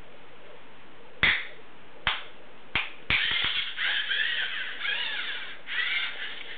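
Three sharp claps, about a second apart, followed by the whirring of a LEGO Mindstorms NXT robot's servo motors, rising and falling in pitch for about three seconds as the robot swings its claws and turns. The robot's sound sensor responds to the claps.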